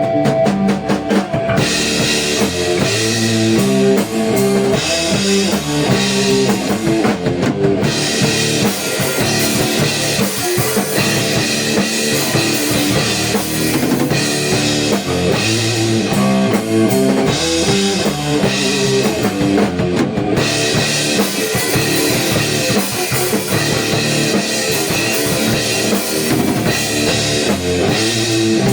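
Rock band playing an instrumental passage of a heavy rock song on electric guitars, bass and drum kit, kicking in with a quick drum fill. The cymbals drop out briefly twice.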